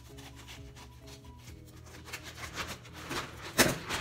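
Blue IKEA plastic bag rustling and crinkling as it is handled and spread out, louder in the second half with a sharp crackle near the end. Soft background music plays underneath.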